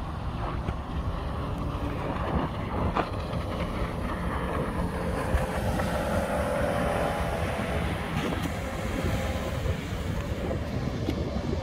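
Wind rumbling on the microphone over choppy water, with the engine of a Hurricane SS 218 deck boat running at speed as it passes. The engine tone rises about five seconds in, is strongest a little past the middle, and fades near the end.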